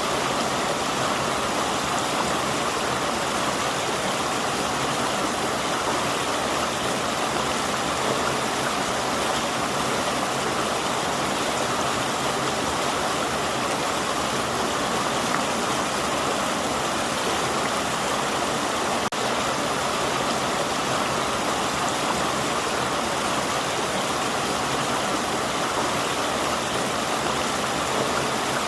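River water flowing steadily over rocks: a constant, even rushing with no change.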